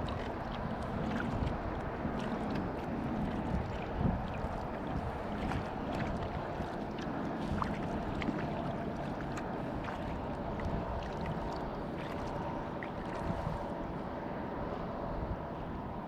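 Kayak paddle strokes: water splashing and dripping off the blades in small, scattered splashes, over a steady rumble of wind on the microphone.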